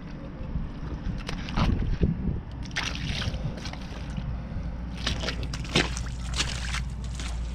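Boots squelching and sloshing through wet, sticky mud, in irregular steps over a steady low rumble.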